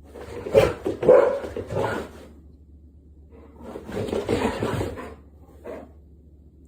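A dog barking in bouts: three sharp barks in the first two seconds, a longer run of barking a couple of seconds later, and one short bark near the end.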